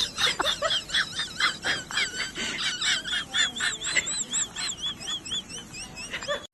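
Many small birds chirping and peeping in quick, overlapping high calls, thinning to a run of repeated arched peeps near the end.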